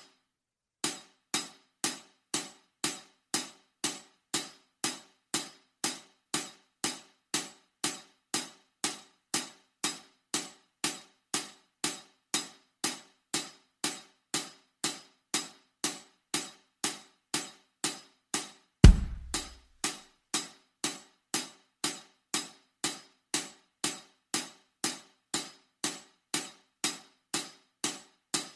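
Steady metronome-style click track ticking evenly about twice a second, the beat for playing along with the lesson's practice chart. About 19 seconds in there is one loud, low thump.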